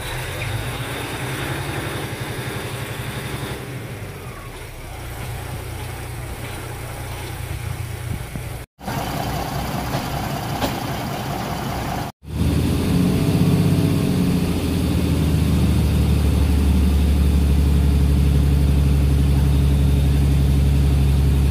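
A passenger train rolls past with a low rumble. After two abrupt cuts, a diesel engine idles with a loud, steady low hum, heard from inside a railway passenger carriage.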